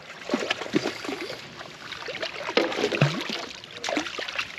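Water splashing and sloshing around a small fishing boat, with scattered small knocks.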